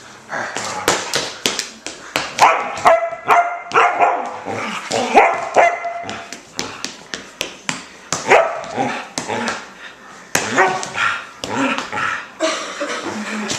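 A dog barking repeatedly in short, sharp barks.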